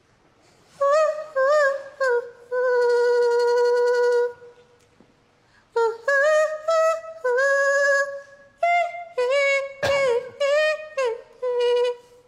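A woman singing alone with no accompaniment: two short notes, a long held note, then after a brief pause a string of held notes with short breaks between them.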